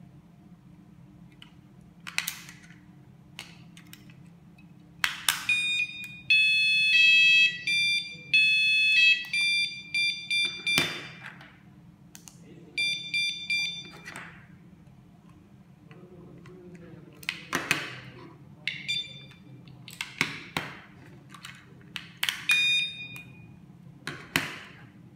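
Battery-powered magnetic door alarm units beeping in loud electronic tones in answer to a key-fob remote: a run of beeps that jump between pitches starting about five seconds in, then a few shorter beep groups later. Sharp clicks from the plastic cases and buttons come in between.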